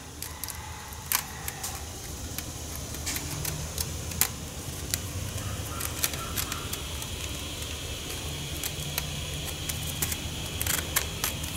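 1/8-inch hardware cloth (wire mesh) being curled and rolled by hand, its wires clicking and crinkling in scattered sharp ticks.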